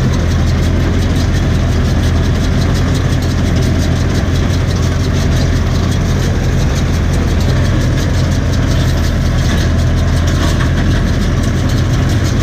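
Tractor diesel engine running steadily, driving a SIPMA PS 1312 round baler as it picks up and bales hay, heard from inside the cab: an even, unbroken low drone with machine noise above it.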